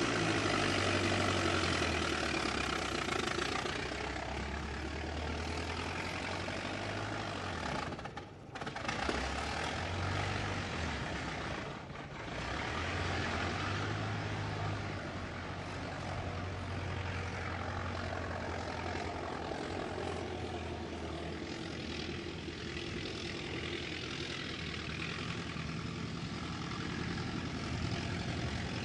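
Antique 1922 car engine running steadily, its speed shifting up and down a little, with two brief dips in the sound about eight and twelve seconds in.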